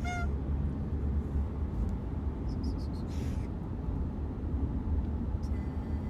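Steady low road rumble inside a moving car's cabin. Right at the start an oriental shorthair cat gives one short honking call, and about three seconds in there is a brief breathy hiss.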